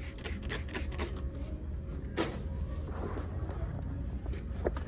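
Steady low rumble of a vehicle, with scattered short clicks and knocks; the sharpest knock comes about two seconds in.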